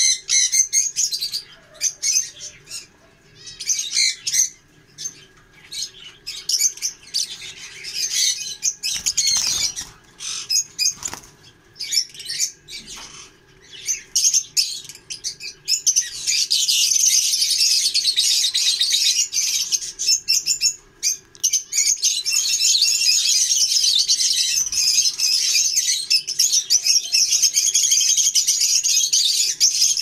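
A flock of caged lovebirds chirping with shrill calls, in scattered bursts at first, then a dense, continuous chatter from about halfway on.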